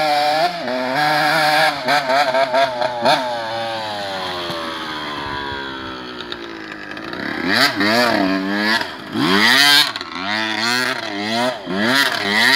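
Dirt bike engine revving up and down as it is ridden, its pitch sinking steadily for a few seconds around the middle as the throttle eases off, then a run of quick revs in the second half as the bike turns on the dirt.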